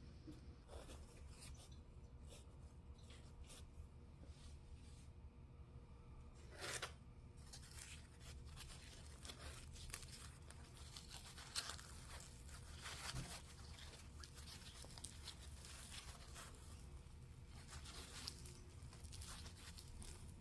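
Faint crackling and tearing of crusty fried bread being pulled apart, with two louder crackles, one about a third of the way in and one just past the middle.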